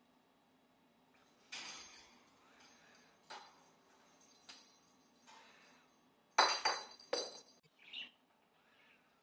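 Small toy balls knocked off by a budgie, landing on the floor in a series of sharp knocks; the two loudest, near the end, leave a short high ringing. A brief budgie chirp follows.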